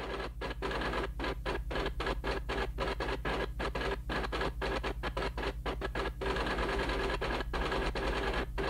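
Rapid, irregular clatter of a retro computer-terminal typing sound effect as text prints out character by character, over a steady low electrical hum.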